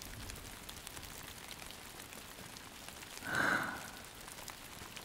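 Steady rain ambience: a soft, even hiss of falling rain, with a brief breathy sound about three seconds in.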